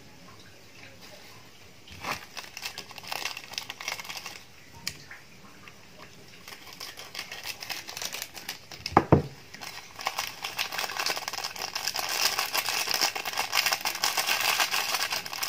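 Plastic seasoning sachets from a pack of instant fried noodles being torn open and squeezed, crinkling and crackling, with one sharp knock about nine seconds in. The crinkling grows denser and louder over the last few seconds.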